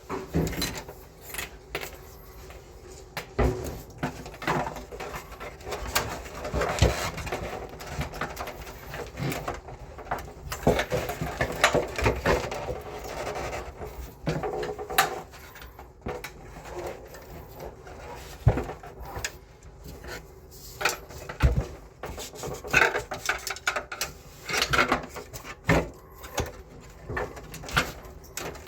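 Irregular clicks, knocks and rattles of parts and tools being handled while a split air conditioner's indoor unit is taken apart to replace its fan motor.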